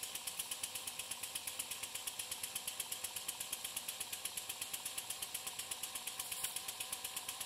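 Model horizontal steam engine running steadily while driving a small DC dynamo, a fast even beat of about eight a second with a faint steady hum. The engine is under load from the dynamo charging a phone.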